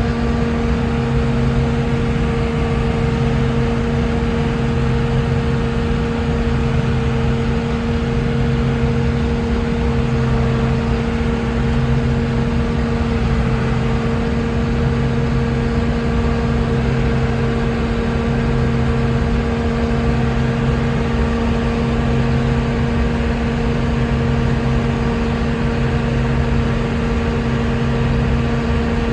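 Combine harvester running steadily while harvesting wheat, heard from inside the cab: a constant machine drone with a steady hum and a low beat that pulses roughly every two seconds.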